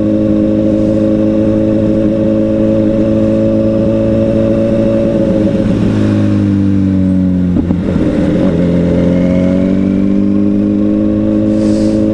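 Honda CBR1000RR sport bike's inline-four engine running while riding, heard close up. Its pitch holds steady, sinks about six to eight seconds in, then climbs back as the bike picks up speed.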